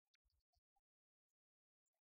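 Near silence, broken only by a few extremely faint brief ticks.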